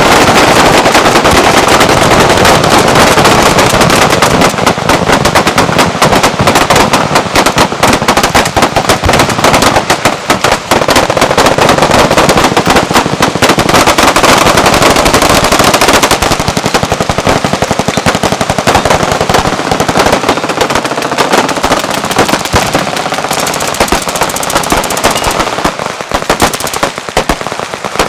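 Sustained full-auto machine-gun fire, with shots packed so densely that they run together into a continuous rattle. It eases slightly in the last few seconds.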